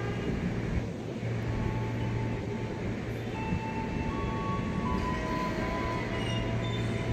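KRL Commuter Line electric multiple unit standing at a platform, with a steady low hum from its onboard equipment. Faint thin whines come in about three seconds in.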